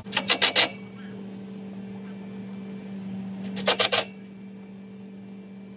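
Cordless drill driving small screws up into the underside of an aluminium top rail: two short bursts of rapid clicking, one at the start and one about three and a half seconds in, over a steady low hum.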